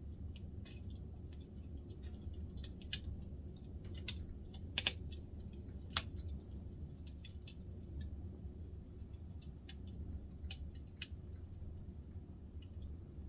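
Wood fire crackling in a glass-fronted stove-fireplace: irregular sharp snaps and pops, a few louder ones along the way, over a steady low rumble.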